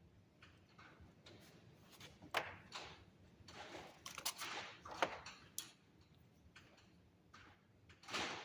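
Hands working with small tools and copper wire: scattered light clicks, scrapes and rustles, with a few sharper clicks a little past the middle and a louder scrape near the end.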